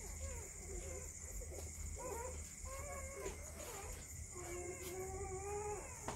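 Newborn Belgian Malinois puppies whining and squealing while they nurse. Several short, wavering cries come first, then longer drawn-out whines from about four seconds in.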